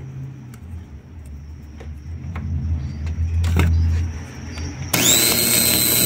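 Rewound Oster blender's universal motor switched on about five seconds in: a sudden loud brush-motor noise with a whine rising in pitch as it spins up. A low hum swells and fades before it. On this field-coil wiring the motor turns the wrong way.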